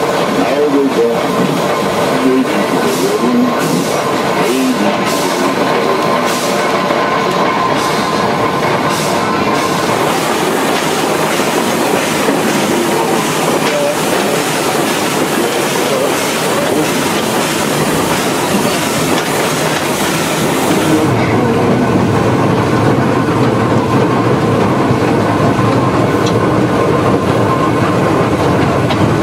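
Climax geared steam locomotive running along the track: a steady, loud rattling clatter of the locomotive and its wheels on the rails. About two-thirds of the way through, the sound turns duller and lower.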